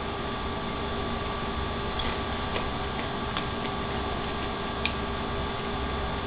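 Steady electrical hum, with a few faint light clicks scattered through it; the sharpest is about five seconds in.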